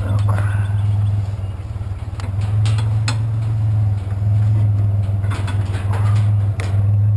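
Pickup truck engine running with a steady low hum, with a few short metallic clinks and knocks over it.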